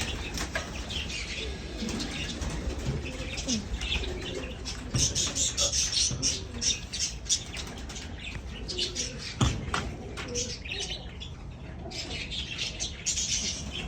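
Parakeets chirping and chattering in quick high bursts, with lower cooing from pigeons mixed in. A single sharp knock sounds about nine and a half seconds in.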